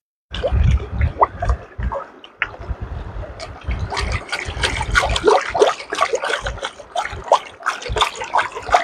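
Water trickling and splashing, full of small drips and gurgles, with low thumps. It starts abruptly just after the beginning and gets busier in the second half.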